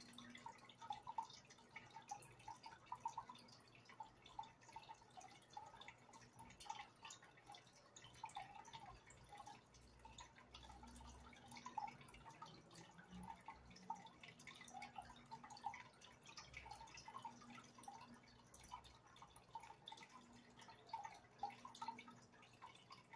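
Faint aquarium water dripping and trickling, with many small irregular plinks and a low steady hum beneath, typical of a tank filter's outflow and pump.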